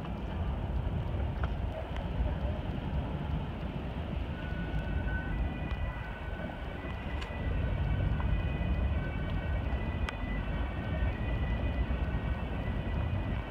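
Steady low rumble of a boat under way on a lake, engine and water noise mixed with wind on the microphone. Faint higher tones come and go in the background from a few seconds in.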